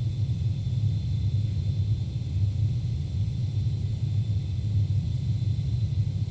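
Ocean microseisms recorded by a seafloor seismometer at 3.9 km depth, sped up 360 times to bring them into hearing range: a steady low rumbling noise, with a faint steady high tone above it.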